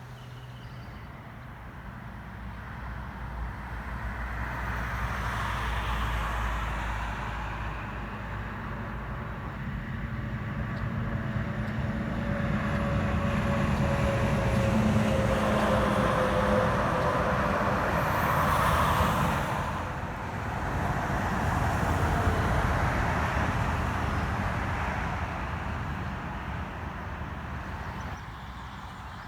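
Road traffic: several cars passing one after another, the noise swelling and fading with each pass, with a slowly falling whine as one vehicle goes by near the middle.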